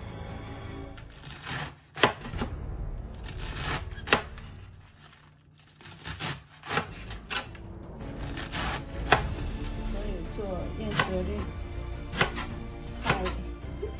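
A kitchen knife chopping food on a cutting board: single sharp chops at irregular intervals, roughly one a second.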